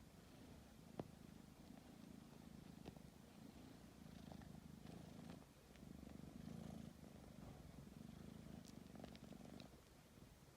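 Domestic tabby cat purring faintly in a steady in-and-out rhythm, with a few faint clicks; the purring stops shortly before the end.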